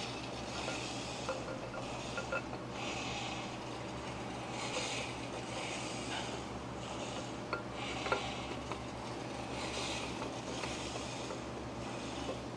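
Repeated hand rubbing or scraping strokes, roughly one a second, with a few light clicks, over a steady low hum.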